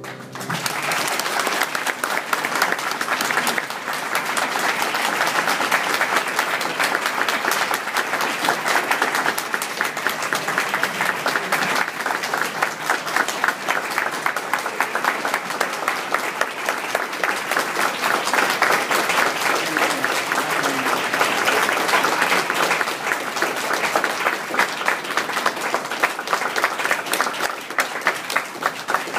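Audience clapping in sustained applause, a dense, steady patter of many hands, starting as a sung note ends.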